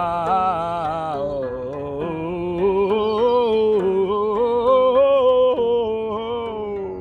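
A solo voice singing long, wavering, drawn-out notes that slide between pitches, growing louder through the middle and fading near the end.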